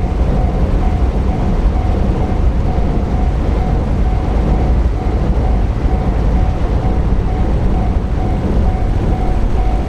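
A freight train passing through a level crossing, its heavy rumble steady throughout, while the crossing's warning bell dings over and over.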